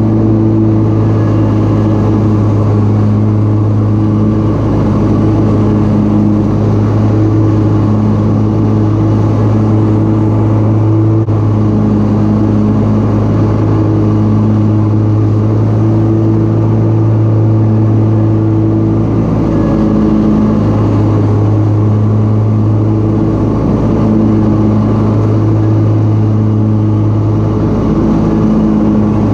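John Deere Z970R zero-turn mower running steadily with its blades mulching leaves, a constant engine hum that swells and eases slightly as it drives.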